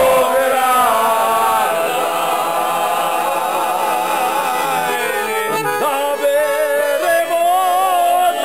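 A group of men singing together in long held notes with a wavering vibrato, accompanied by a Hohner piano accordion.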